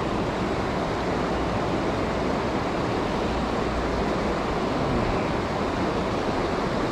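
Fast-moving creek water rushing over rocks, a steady, even rush of white water.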